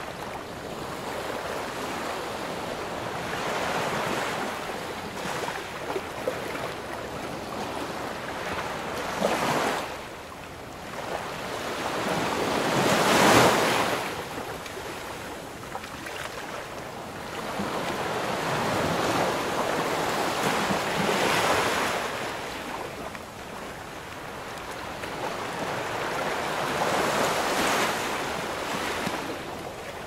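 Waves washing onto a shore: a rushing hiss that swells and eases every few seconds, the biggest surge about thirteen seconds in.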